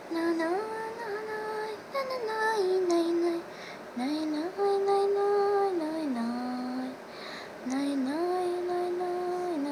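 A child singing a slow tune in long held notes, stepping and sliding between pitches, with short breaks between phrases.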